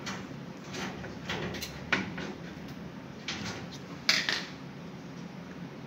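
Tin snips cutting wire mesh at the edge of a stove: a handful of short, crisp snips and metallic clicks, the loudest about four seconds in.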